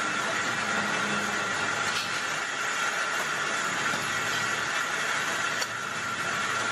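Traub-type automatic lathe running and turning metal rod under coolant: a steady mechanical whir with a constant high hum, and a faint tick near the end.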